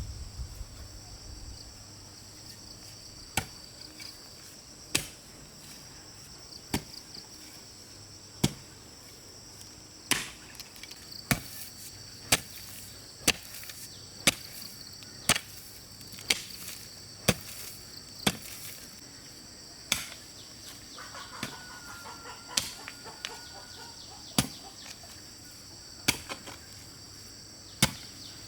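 Repeated chopping strikes of a hand tool, sharp knocks that come irregularly at first and then about once a second. A steady high buzz of insects runs underneath.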